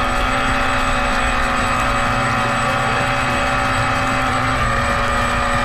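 Radio-controlled boat's motor running steadily at speed while towing, a high mechanical drone; its pitch drops slightly about four and a half seconds in.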